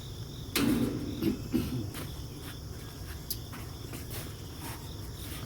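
Crickets chirping steadily, with a brief low sound about half a second in and several light clicks and knocks of grill parts being handled.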